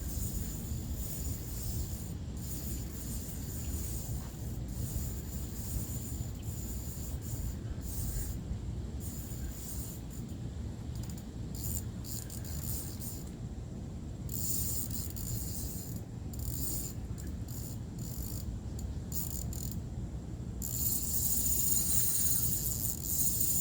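Fishing reel working during the fight with a hooked carp, its drag and gears giving an on-and-off high whirring as the fish takes line, with a steady low rumble underneath.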